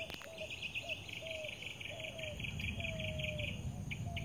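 Morning birdsong: a fast, high, pulsing trill that stops near the end, with a string of short, slightly falling lower whistled notes, over a low background rumble.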